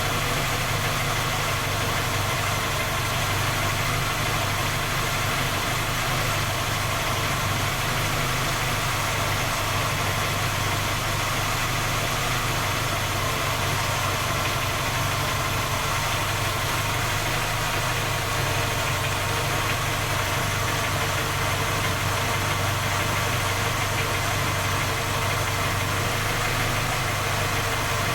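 Skoda Octavia 1.6 MPI petrol engine idling steadily with a knock, a cold-start knock that three engine repairs have not traced or cured.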